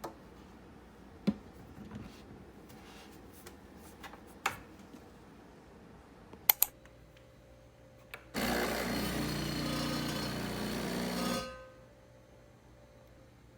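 A few sharp clicks and knocks of handling, then a small electric motor runs loudly for about three seconds and stops abruptly, leaving a faint steady hum.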